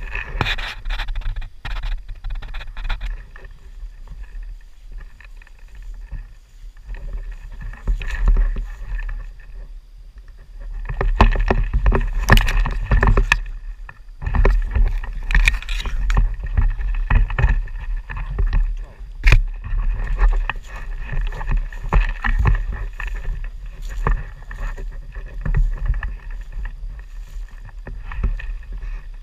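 Rustling and footsteps through long grass and brush, with irregular crackles and brushing noises that swell twice near the middle, over a constant low rumble of wind and handling on the microphone. A single sharp click sounds about two-thirds of the way in.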